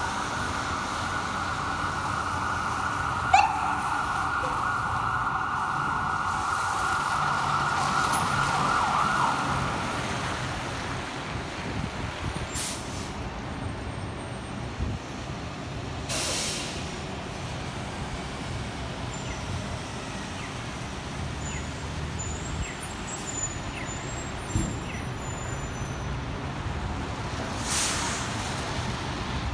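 Fire truck siren sounding steadily, with a short sharp rising whoop a few seconds in, then stopping about ten seconds in. After that the truck's engine idles, with a few short air-brake hisses.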